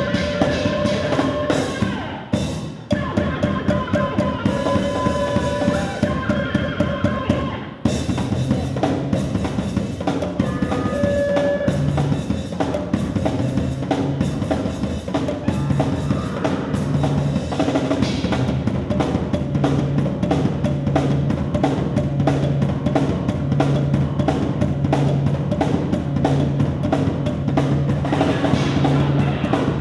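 Drum kit played fast and dense under electronic tones. Two brief breaks come early, and from about twelve seconds in a low electronic tone pulses on and off every second or two.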